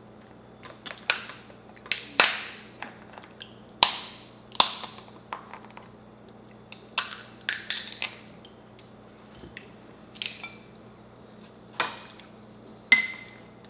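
Crab-leg shells cracking and snapping as they are broken apart by hand, a dozen or so sharp cracks at irregular intervals, some with a short crunching rasp. A brief ringing clink near the end.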